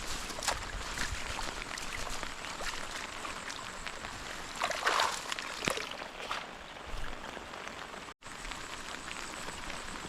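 Heavy rain falling steadily, a dense hiss of many small drop patters, with a brief louder noise about five seconds in.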